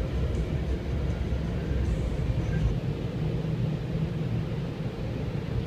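High-pressure water jets of a touchless car wash spraying the car, heard from inside the cabin as a steady noise heavy at the low end.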